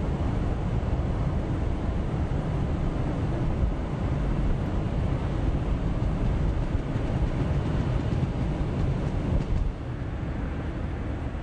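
Wind rumbling on the microphone over the steady rush of surf breaking on the beach, a little softer near the end.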